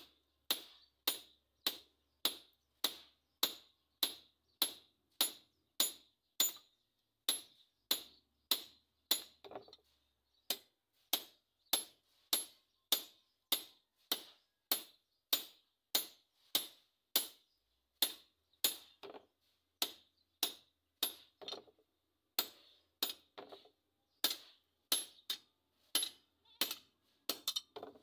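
Hand hammer forging a red-hot steel talibong (Filipino long bolo) blade on a small steel anvil. The blows fall in a steady rhythm, a little under two a second, each a sharp metallic ring. There are short breaks about ten seconds in and again about three-quarters through.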